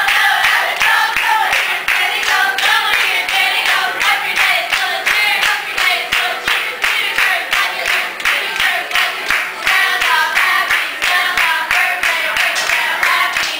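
A group of women singing together while clapping their hands in a steady rhythm.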